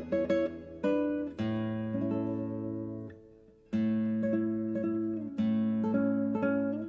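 Background music on a plucked acoustic guitar, picked notes and held chords, with a short pause about halfway through.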